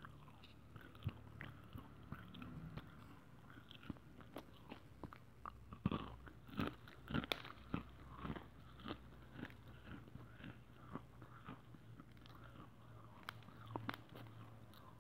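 A person biting and chewing lumps of white khadi clay, which is described as very crunchy: irregular dry crunches, thickest from about six to nine seconds in, then more scattered.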